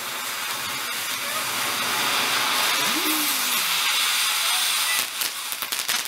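Firework ground fountain (Vulkan) spraying sparks with a steady rushing hiss that grows louder; about five seconds in, a rapid crackling sets in.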